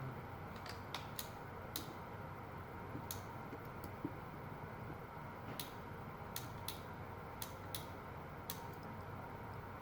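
Light, sharp clicks and ticks, about fifteen of them at irregular intervals, from small plastic and metal parts of a Teddy Ruxpin's tape mechanism being handled and worked on.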